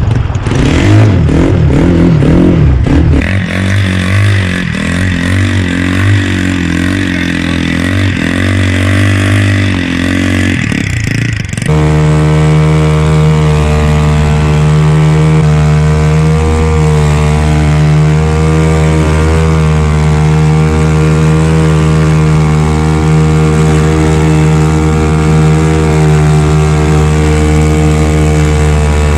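Mini speedboat's engine running under way, its pitch wavering up and down for the first several seconds, then from about twelve seconds in holding one steady, unchanging note as the boat runs fast across the water.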